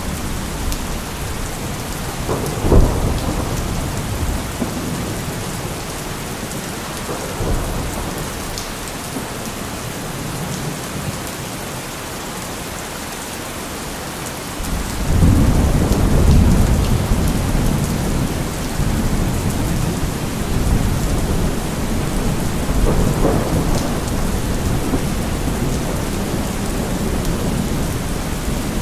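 Steady rain falling, with thunder: a brief crack about three seconds in, a long low rumble starting about halfway through and fading over several seconds, and a weaker roll later on.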